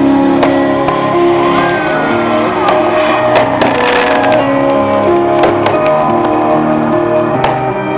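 Loud music with held notes that change every second or so, with a few sharp clicks over it.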